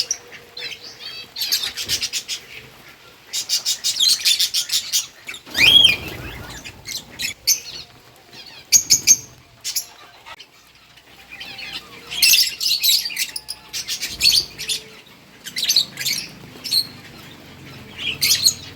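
Lovebirds chirping in quick, high-pitched twittering bursts with short pauses between them, and one louder rising call about six seconds in.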